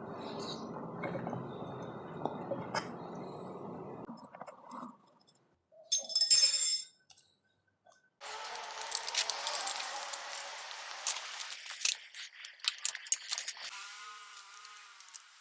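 Metal tools and engine parts clinking and rattling during hands-on engine disassembly, with sharp clicks and a louder, short ringing clink about six seconds in.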